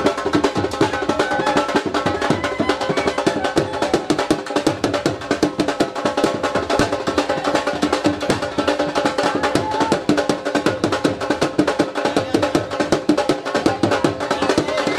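Drums playing a fast, steady beat, with a held melody line sounding above the drumming.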